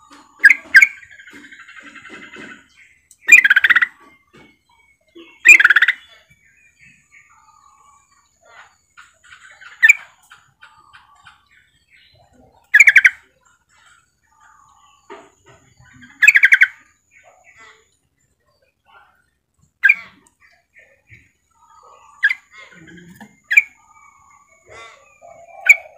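Female yellow-vented bulbul (trucukan) giving short, loud chattering calls every two to four seconds, about ten in all, with a quick double call near the start. This is the female's call that prompts males to answer.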